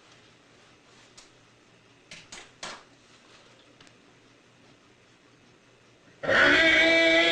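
A few faint clicks, then about six seconds in a sudden loud, long, held cry from a person's voice.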